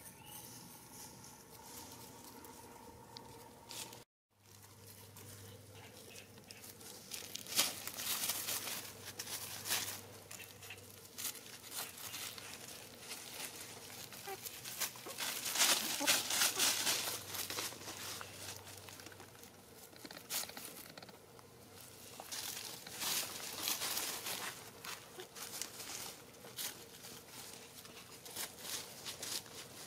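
Chickens scratching and pecking through dry leaf litter: irregular bursts of leaves rustling and crinkling.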